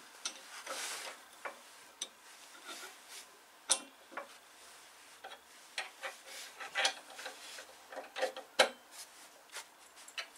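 Irregular light metal clicks, taps and short scrapes from handling the lathe's tool rest and clamp, with a sharper knock about three and a half seconds in and another near the end; no motor is running.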